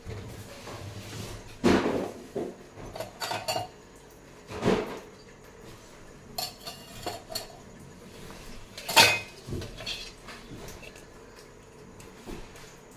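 Dishes and cutlery clinking and knocking in a series of separate clatters, some with a short metallic ring, the loudest about nine seconds in.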